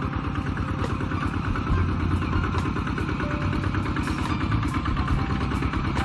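Kubota RT-120 walk-behind tractor's single-cylinder diesel engine running steadily under load as it pulls a plough through dry soil, with a rapid, even firing beat.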